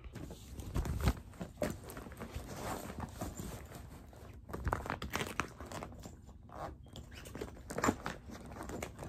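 Irregular rustling and light knocks of things being handled and packed into a bag by hand, loudest about a second in and again near the end.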